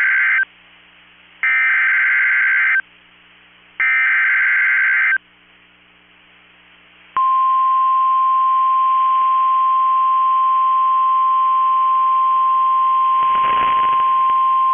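NOAA Weather Radio Emergency Alert System signal. It has the tail of one SAME digital header burst and two more of the buzzing data bursts, each about a second and a half, with short gaps between them. After a two-second pause, the steady single-pitch 1050 Hz warning alarm tone starts about seven seconds in and holds. It is the alert that comes before a new severe thunderstorm warning.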